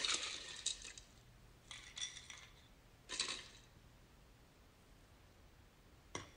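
Ice cubes clinking in a glass: a few short clattering bursts with a light glassy ring in the first three and a half seconds, then a single clink near the end.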